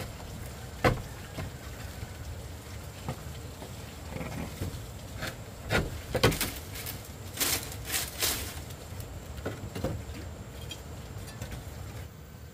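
Irregular knocks and taps with a few short scrapes, the busiest stretch in the middle, over a steady low background noise.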